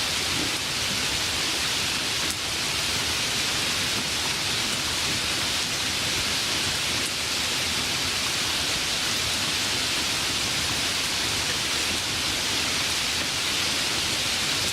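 Steady light rain falling, an even hiss without distinct drops or thunder.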